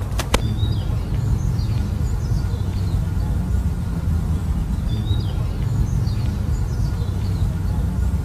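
Outdoor ambience: small birds chirping in short falling calls, several times over, above a steady low rumble. Two sharp clicks just after the start.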